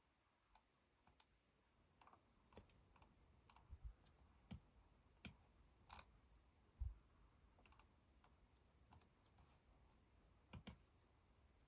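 Faint, scattered clicks of computer controls, about ten spread over several seconds, with a quick pair near the end. Otherwise near silence.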